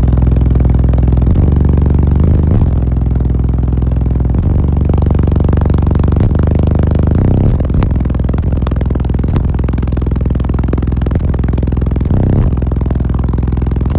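Six 18-inch Sundown ZV5 subwoofers playing very loud deep bass notes that shift in pitch every second or two.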